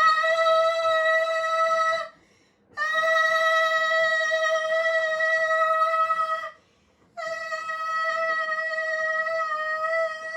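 Loud, steady alarm or horn tone, one fixed mid pitch, sounded in long blasts of about four seconds each with short gaps between them.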